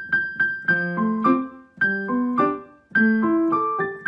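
Background piano music: a light tune of quick, separately struck notes over lower notes, played in short phrases.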